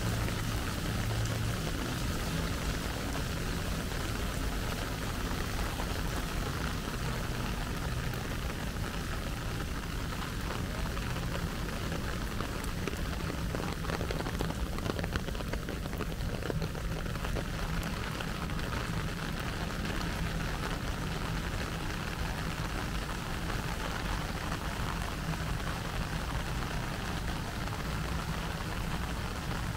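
Steady rain falling, with many small drops ticking on surfaces, over a low steady hum.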